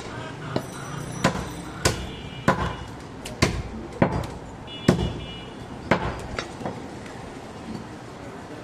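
Heavy butcher's cleaver chopping goat meat on a wooden log chopping block: a run of sharp chops under a second apart, thinning out and stopping after about six seconds.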